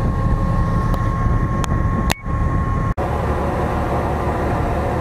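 Steady low rumble of a container ship under way, heard on its open stern deck, with a faint steady hum over it. The sound drops out briefly about two seconds in and changes abruptly just before three seconds.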